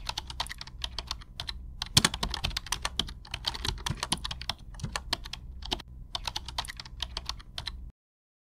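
Keyboard typing sound effect: a quick, irregular run of key clicks over a low steady hum, stopping abruptly near the end.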